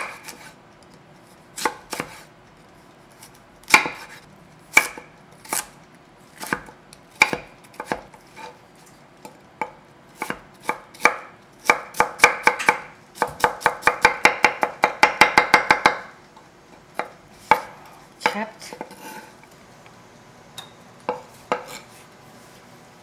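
Kitchen knife cutting a small seedless cucumber on a wooden cutting board. There are separate knocks of the blade at first, then a fast run of chopping, several strokes a second, for about four seconds past the middle, then a few last knocks.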